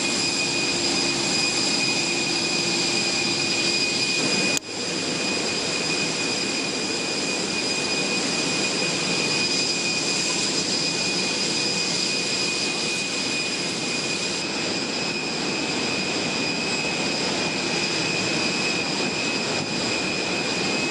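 Jet aircraft engines running steadily, a continuous rush with a high turbine whine. There is a brief break about four and a half seconds in, after which the same sound carries on.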